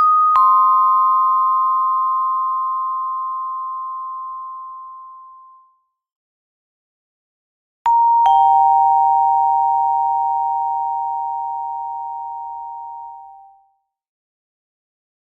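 Two-note ding-dong doorbell chime, rung twice. Each ring is a higher note followed a moment later by a lower one, and both ring out and fade over about five seconds. The second ring, about eight seconds in, is pitched lower than the first.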